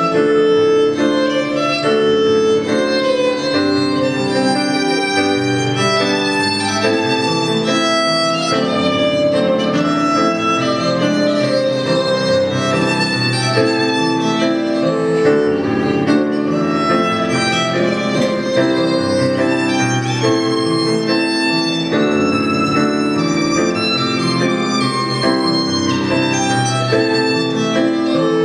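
Violin playing a melody of sustained bowed notes over electric keyboard accompaniment, without a break.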